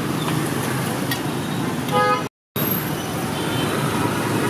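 Steady rumble of busy street traffic, mostly motorbikes, with a short horn toot about two seconds in. The sound cuts out completely for a split second just after the toot.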